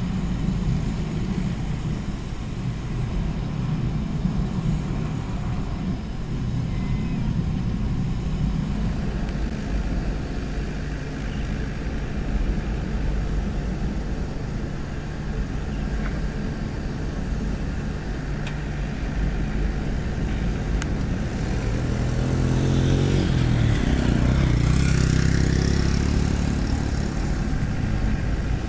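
Komatsu PC75UU mini excavator's diesel engine running steadily while it digs. About 22 seconds in, the engine note rises and grows louder for a few seconds as it works harder, then settles back.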